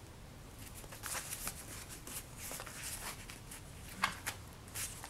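Hand-sewing book signatures: black linen thread drawn through the folds of Stonehenge paper, with irregular rustling and scraping of the paper and a sharp tap about four seconds in.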